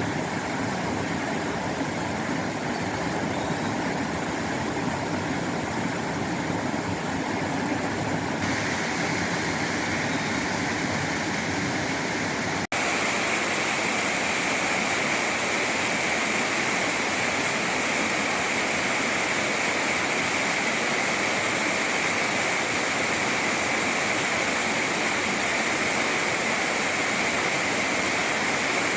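Mountain stream water rushing in a steady, even wash of noise. A little under halfway through it cuts abruptly to a slightly louder, brighter stretch of rushing water.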